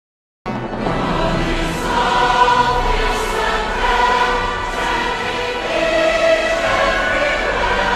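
Choir singing a hymn with accompaniment, starting abruptly about half a second in after total silence.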